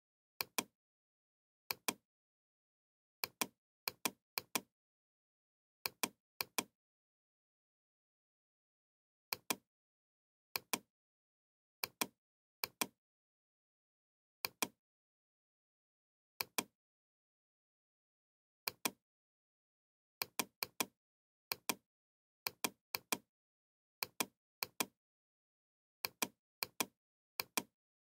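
Computer mouse clicking: about two dozen pairs of sharp clicks at uneven intervals, with dead silence between them.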